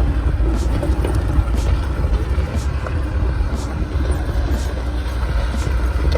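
Mahindra Thar 4x4's turbo-petrol engine running as the vehicle drives off-road, a steady low rumble. A faint high tick repeats about once a second.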